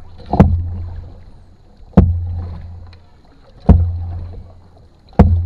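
Canoe paddle strokes knocking against the canoe's side in a steady rhythm: four sharp knocks about one and a half seconds apart, each followed by a low hollow ring through the hull that fades away.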